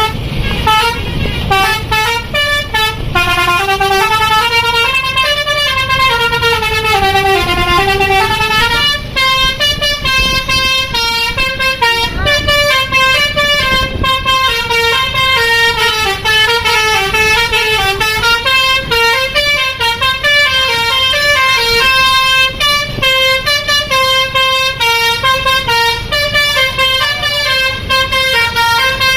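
Basuri 'telolet' musical bus horn playing a long, loud melody: the notes step up and down several times a second without a break.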